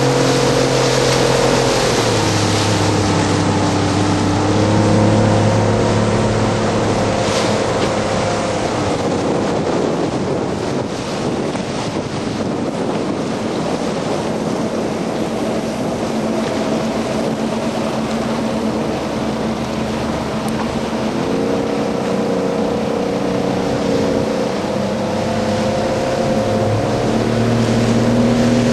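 Motorboat engines running on open water, with wind and splashing wash. The engine note drops about two seconds in, comes back up shortly after, and climbs again in steps near the end.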